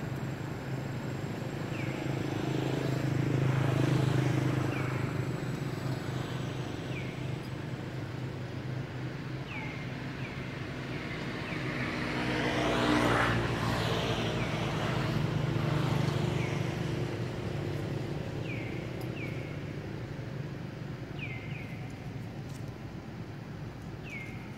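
Motor vehicles passing on a nearby road, their noise swelling and fading twice, about four seconds in and again around thirteen seconds. Short, high, falling chirps repeat at intervals throughout.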